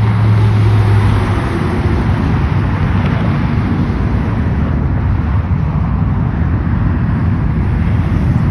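Road traffic: a car drives past close by with a low engine hum for the first second or so, then a steady loud rumble of traffic.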